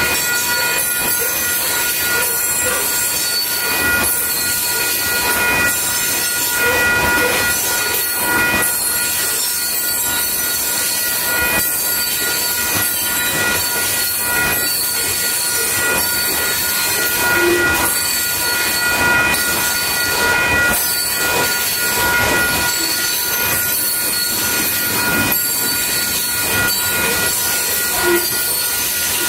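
Loaded open-top hopper cars of a freight train rolling past at speed: a steady rumble of steel wheels on rail, with a steady high ringing over it and scattered sharp clicks from the wheels.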